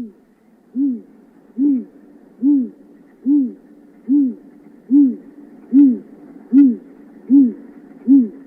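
Wood owl (Strix) hooting: a steady series of short, deep hoots, a little over one per second, each rising and then falling slightly in pitch.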